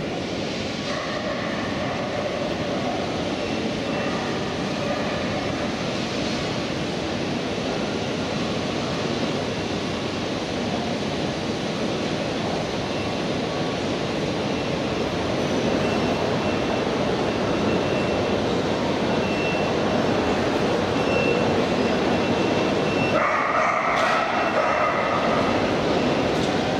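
Busy railway station concourse ambience: crowd chatter and footsteps in a large echoing hall, with a faint high beep repeating now and then in the second half.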